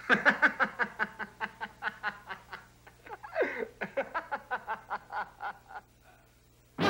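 Boys laughing in two bouts of quick, rhythmic ha-ha pulses: the first runs about two and a half seconds, and the second follows after a short break.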